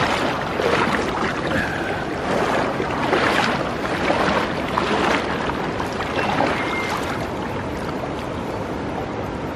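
River water rushing and splashing close to the microphone, with the heaviest splashing in the first half and a steadier flow later.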